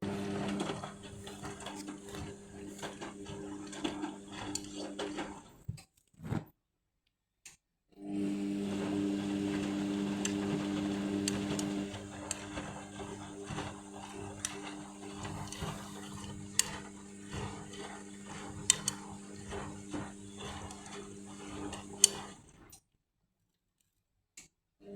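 Indesit washing machine running its rinse: a steady motor or pump hum with scattered clicks and knocks. It stops twice for a couple of seconds, about six seconds in and again near the end.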